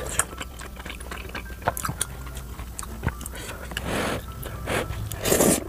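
Close-miked eating sounds: wooden chopsticks and a wooden spoon clicking and scraping in a container of creamy rose tteokbokki, with breathy puffs of blowing to cool a hot mouthful about four seconds in and again near the end.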